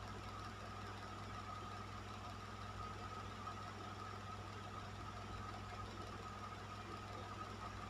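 Electric fan running at a steady speed: an even rush of air over a low motor hum and a faint steady whine.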